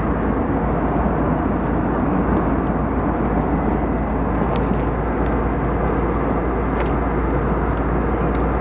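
Steady cabin noise inside an Airbus A320 airliner: the engines and airflow as a loud, even rush. A few faint clicks come through it, about halfway through and near the end, as the seat-back pocket and tray-table latch are handled.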